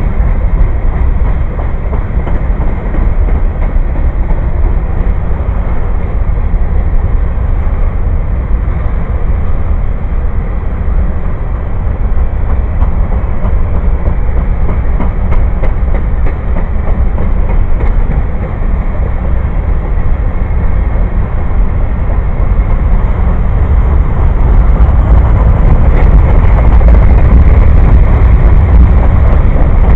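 Railroad cars rolling past close by: a loud, steady rumble of steel wheels on rails with occasional clacks, growing louder about three quarters of the way through.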